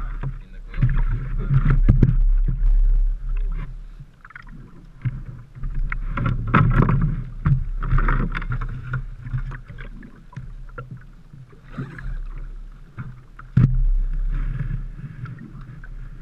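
Handling noise in a small open boat: irregular knocks and rustling as gear and a large fabric bag are shifted against the hull, over water movement and a low rumble of wind on the microphone.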